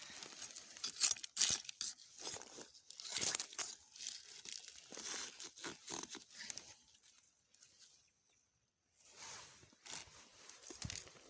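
Crunching, tearing rustles of plants and leaf litter being handled while wild krachiao (Siam tulip) flowers are picked, coming in irregular bursts. They stop for about a second and a half roughly two-thirds of the way through, then start again.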